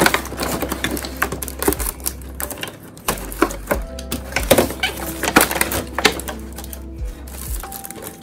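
Clear plastic packaging crinkling and crackling in irregular snaps as hands pull it apart, with background music underneath.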